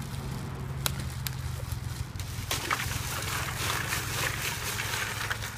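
A few crinkles from a plastic bag of ice being opened. Then, from about two and a half seconds in, the ice cubes are poured into a plastic cooler of water: a dense clatter and splash of cubes lasting about three seconds.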